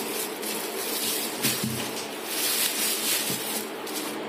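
Rustling and crinkling of a cloth market bag and the plastic bags inside it as they are pulled open and handled in a stainless-steel sink, in irregular bursts.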